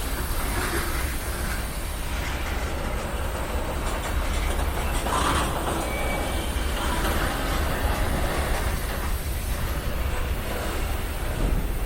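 BNSF freight train's cars rolling slowly past with a steady low rumble of wheels on rail, and a brief higher-pitched screech about five seconds in.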